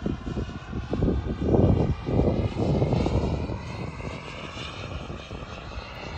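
Turbine whine of a radio-controlled Tomahawk F-86 Sabre model jet in flight, over a rushing rumble that swells about one and a half seconds in. The whine rises a little in pitch toward the end.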